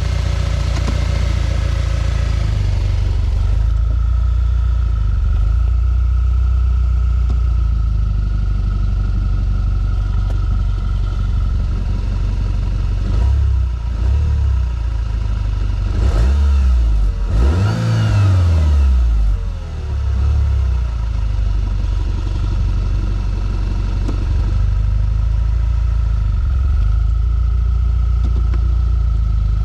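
2012 Audi A4 (B8.5, S tronic gearbox) engine running steadily. About halfway through, the revs rise and fall a few times before settling back to a steady run.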